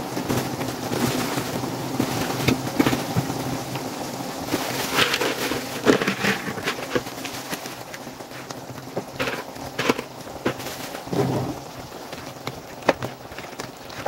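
Sweet and sour sauce simmering in a frying pan with a steady crackling bubble, as fried chicken pieces are dropped in with soft knocks and splats against the pan. Several louder knocks stand out, the last near the end as a spatula works through the chicken.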